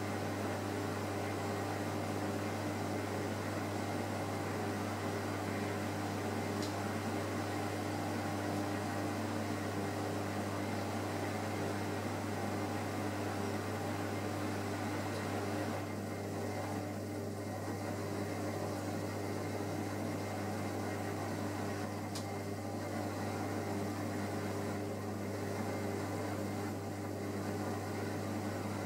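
Steady electrical hum of reef aquarium equipment: a constant low drone with an even hiss above it, unchanging throughout.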